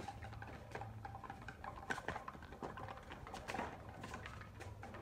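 Irregular taps and scuffs of a German Shepherd's paws and a man's sandals on stone paving as they tussle over a ball.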